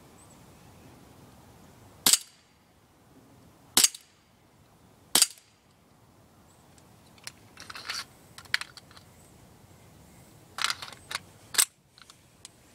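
CO2-powered full-metal blowback airsoft Colt M1911A1 pistol firing: three sharp shots about a second and a half apart, each with the crack of the gas and the slide cycling. Quieter clicks and clatter come next, then two more pops near the end.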